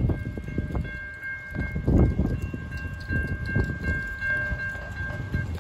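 Light-rail level-crossing warning bell ringing steadily while the gates are down, over a low wind rumble on the microphone. The ringing stops just before the end.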